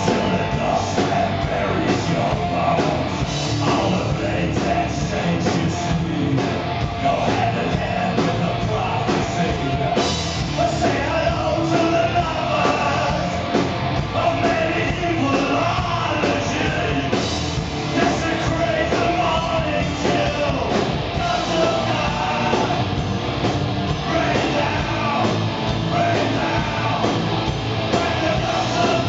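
Live rock band playing: electric guitar, bass guitar and drums, with a man singing lead into the microphone.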